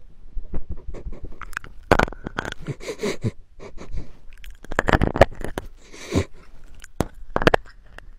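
A small dog sniffing and mouthing at a handheld microphone held against its nose, close to the mic: irregular snuffles with sharp clicks and rubs.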